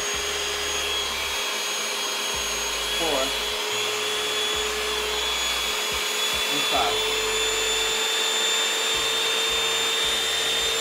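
Simplicite 5-speed hand mixer's 150-watt motor running with both beaters spinning in the air, a steady whine. It is stepped up through its speeds with the slide switch, with brief changes about 3 and 7 seconds in. Its pitch creeps only slightly higher, showing little difference between speeds.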